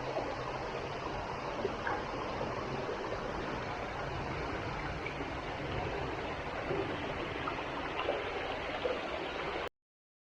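Steady rush of flowing water, like a stream, that cuts off suddenly near the end.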